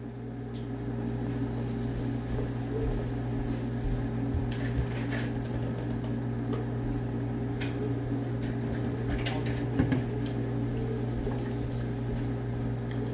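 Steady hum of a running kitchen appliance, with a few light knocks of a knife on a wooden cutting board as raw chicken breast is cut into pieces.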